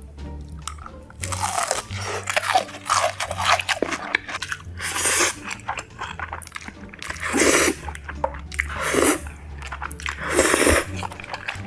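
Close-miked eating: crunchy bites and chewing of crispy fried food, then about four long, loud slurps of spaghetti noodles, over soft background music.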